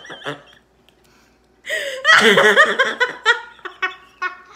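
Laughter: a laugh dies away, then after a brief quiet a loud burst of laughing starts about one and a half seconds in and breaks up into short chuckles.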